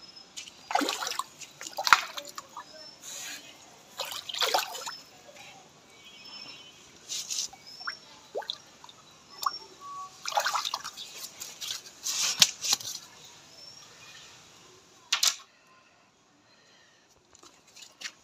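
Hooked carp thrashing and splashing at the water's surface in repeated bursts, about six splashes over some fifteen seconds, then quieter.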